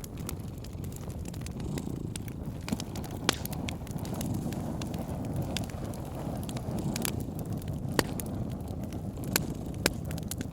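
A cat purring steadily under a wood fire crackling, with a few louder pops from the fire.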